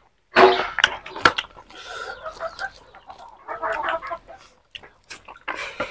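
Chickens clucking in several runs of calls, the loudest about half a second in.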